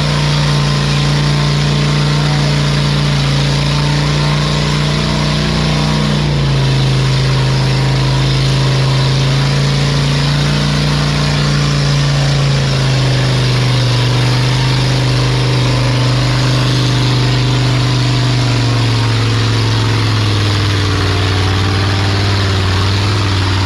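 A vehicle engine running steadily, its pitch dropping in steps three times as the engine slows.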